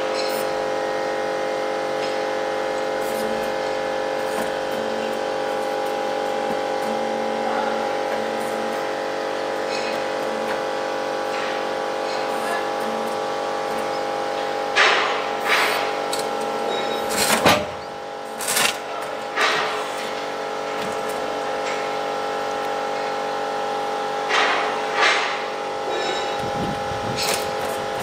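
Donaris Puma EA hydraulic sawmill running with a steady hum, broken by several short louder bursts and a couple of sharp knocks about halfway through and again near the end.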